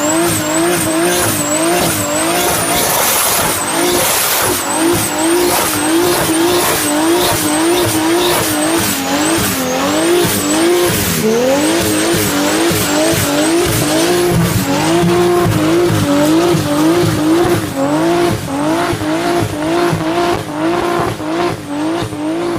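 Turbocharged car engine revving hard in quick cycles, its pitch climbing and dropping back about twice a second. A high whine rises and falls in step with the engine, over a rough crackle.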